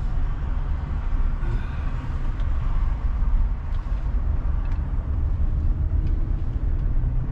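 2012 Hyundai Azera's 3.0 V6 engine running with a steady low rumble after new spark plugs and coils: the misfire is gone, but it still runs rough.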